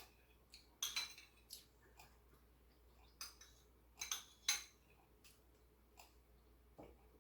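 Eating utensils clinking lightly against dishware: irregular sharp clicks and taps, the louder ones about a second in and around four seconds in.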